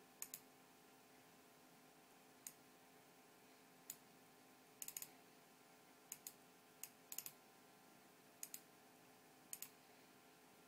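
Computer mouse button clicking, single clicks and quick double-clicks at irregular intervals, over a faint steady hum.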